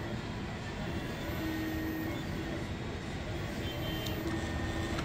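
Forward mobile-skin cutting plotter running as it cuts a membrane sheet: its motors whir steadily while the cutting head moves, with a faint low whine that starts and stops several times.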